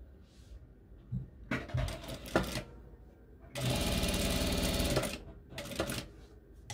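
Sewing machine stitching a seam through cotton fabric: a few short bursts, a steady run of about a second and a half, then more short bursts near the end. The short back-and-forth runs are backstitching to lock the seam.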